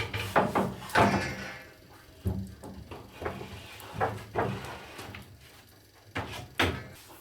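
Wooden jig pieces being handled and slid into place on the bandsaw: a run of knocks, clunks and short sliding sounds, the loudest about a second in.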